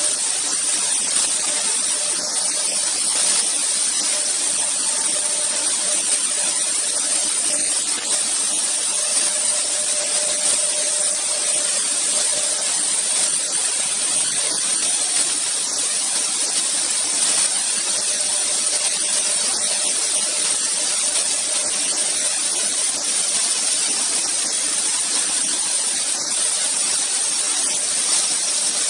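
Double-spindle AccTek AKM1325-2 CNC router with both spindles cutting a board at once, a steady high hiss with no breaks.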